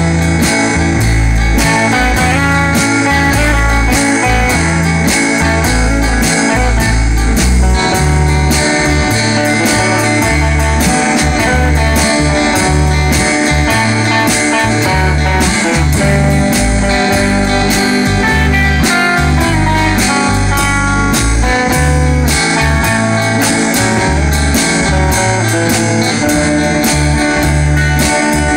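Live country band in an instrumental passage: an electric lead guitar picks a melody over strummed acoustic rhythm guitar, bass and drums, at a steady tempo.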